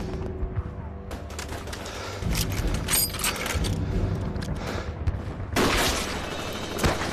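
Film battle soundtrack: scattered rifle and machine-gun fire with heavy blasts, over a low music bed, with a louder burst of fire about five and a half seconds in.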